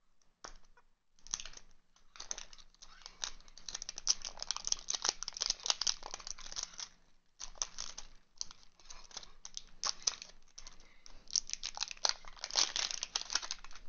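Plastic wrapping crinkling and tearing as it is pulled off a Quick Ball tin, in dense fast crackles with a short pause about seven seconds in.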